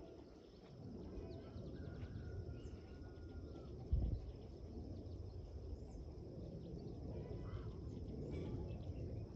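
Outdoor ambience: a steady low rumble, a thin steady high buzz, and faint scattered bird chirps, with one dull thump about four seconds in.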